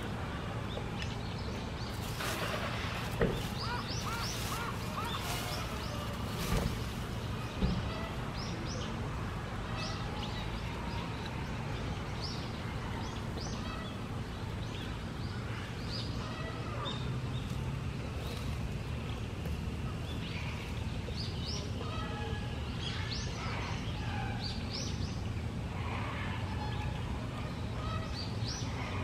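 Outdoor ambience: a steady low hum with scattered short bird chirps, and a few sharp knocks about three, six and a half and eight seconds in.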